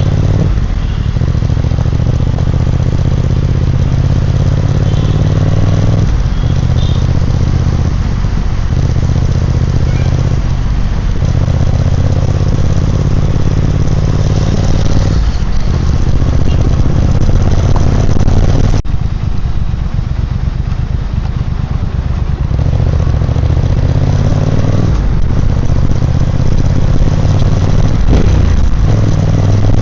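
Triumph Speed Twin 1200's 1200 cc parallel-twin engine and exhaust running while riding, the steady low engine note dipping briefly every few seconds, the throttle eased off and picked up again.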